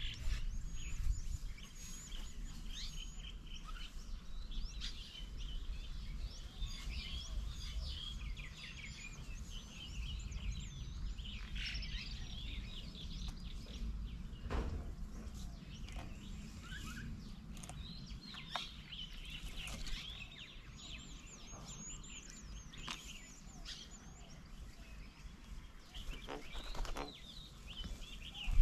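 Several small birds chirping and whistling, many overlapping short calls and quick up-and-down whistles, over a low steady background rumble.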